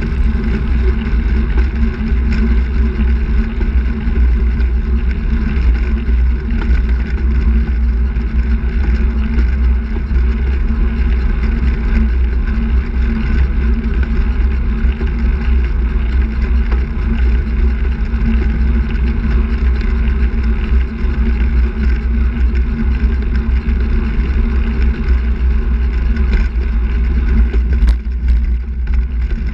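Steady wind noise on the microphone of a camera mounted on a moving handbike, mixed with tyre and road noise.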